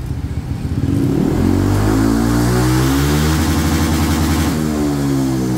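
Honda ADV 160 scooter's single-cylinder engine, breathing through a bored-out stock muffler, revved to full throttle with the rear wheel spinning free while the scooter stands still. The engine note climbs from about a second in and holds steady at the top, at the limit of about 132 km/h on the speedometer, then falls away as the throttle is eased off near the end.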